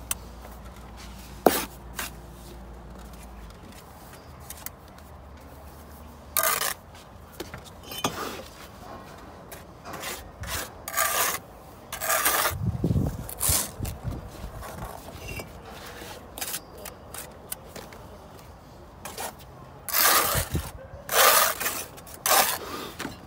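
Steel bricklaying trowel scraping over brick and wet mortar in short strokes, several seconds apart, as mortar is spread and excess is struck off the joints and wall face.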